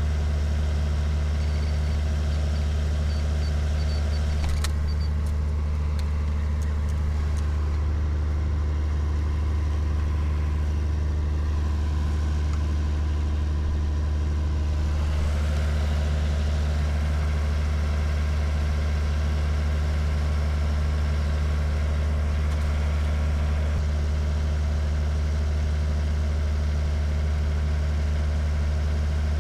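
A loud, steady, low mechanical drone that never changes in level, with a few faint clicks about five seconds in.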